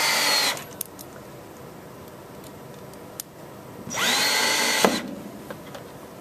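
Cordless drill driving two screws into a wall, one after the other. The first run winds down about half a second in; a second run of about a second starts near four seconds, its motor whine rising as it speeds up, then cuts off as the screw seats.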